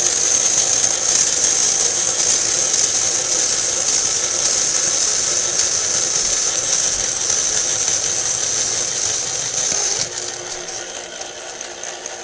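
Presto Tater Twister electric curly fry cutter running steadily, its motor and gears turning a potato against the curly-fry blade disc. It gets a little quieter about ten seconds in and stops with a sharp click near the end.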